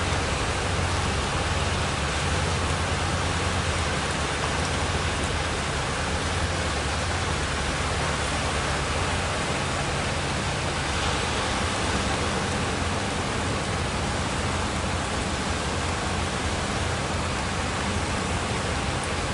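Sea surf breaking on the beach: a steady, even roar with a faint low hum underneath.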